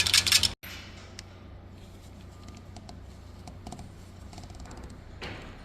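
BMW M62 V8 running with a loud, fast metallic timing-chain rattle caused by broken chain guides, cut off abruptly about half a second in. A quiet steady low hum with a few faint light ticks follows.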